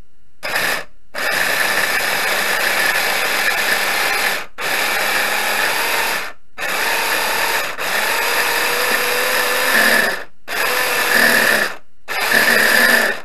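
Electric food chopper's motor running in seven pulses of one to three seconds with short stops between, its blade chopping food in the bowl.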